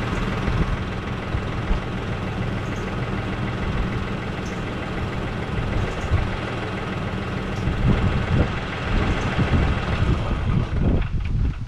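2020 Case IH tractor's diesel engine idling steadily, then cutting off near the end, leaving wind buffeting the microphone.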